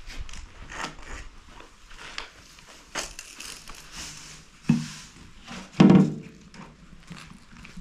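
Loose, dry moulding sand hissing as it pours out of a tipped-over steel paint tin onto concrete, with two heavy thumps about a second apart near the end as the tin and its load hit the ground. The second thump is the louder.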